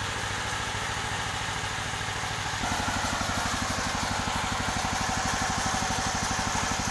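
Engine of a homemade sawmill running steadily. About two and a half seconds in, its note changes and it grows a little louder.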